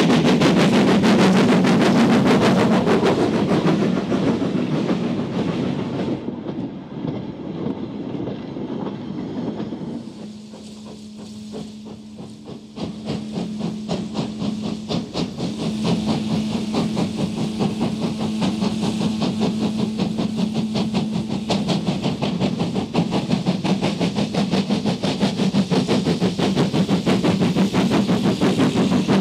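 Andrew Barclay saddle tank steam locomotive hauling a train of goods wagons, its exhaust beating rapidly with hissing steam from the cylinder drain cocks. After a quieter stretch in the middle it comes close again, exhaust beating and wagon wheels clattering over the rail joints.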